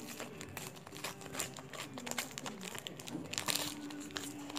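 A World Cup sticker packet torn open and its wrapper crinkled by hand, a quick run of sharp crackles.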